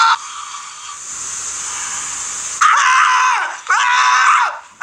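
A steady hiss for about two and a half seconds, then a man screaming in loud, high-pitched yells as he jolts awake and thrashes in a recliner.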